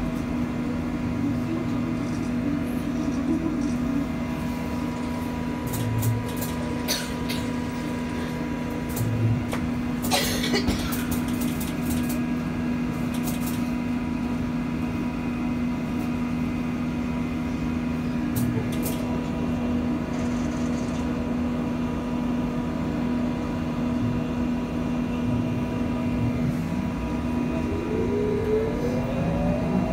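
Inside a BKM 321 trolleybus: a steady electric hum runs under the cabin noise, with the motor's whine falling away at the start and a rising whine near the end as it pulls away. A few sharp clicks and rattles come through the middle, the loudest about ten seconds in.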